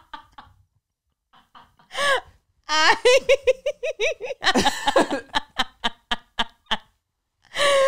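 A group of people laughing hard in bursts, including a rapid, high-pitched 'ha-ha-ha' run about three seconds in. The laughter drops out briefly twice.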